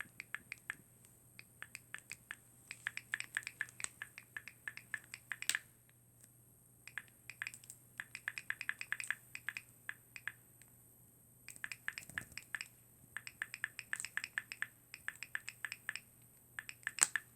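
Water bottle making repeated sharp clicks that sound like a switch button being pressed, several a second, in runs of a second or two with short pauses between them.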